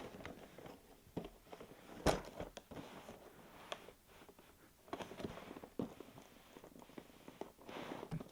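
A model's box and packaging being handled and opened: scattered clicks, taps and short rustles, with a sharp knock about two seconds in.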